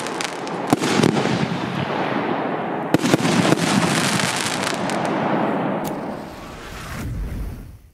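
Piromax PXB3910 'Nitrogen' consumer fireworks battery (47 shots, 25/30/48 mm) firing: sharp reports over dense crackling. About six seconds in it drops away to a quieter low rumble that swells briefly and then cuts off.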